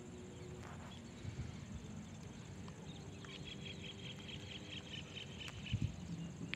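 Outdoor ambience with a steady low rumble. About halfway through, an animal gives a rapid run of high chirps, roughly six a second, for about two seconds.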